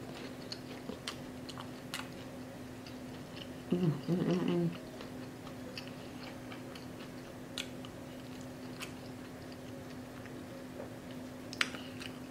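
Close-miked chewing of crispy fried catfish and bread, with scattered small crunches and wet mouth clicks. About four seconds in comes a brief closed-mouth vocal sound, and a steady low electrical hum runs underneath.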